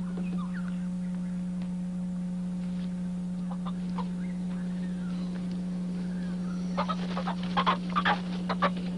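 A chicken squawking and clucking in a quick run of short calls near the end, over a steady low hum.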